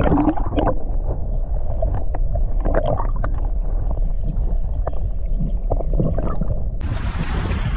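Underwater camera sound in shallow water over a reef: a dull, muffled rush and slosh of water with a low rumble and scattered small clicks and knocks. Near the end the sound suddenly turns brighter and fuller.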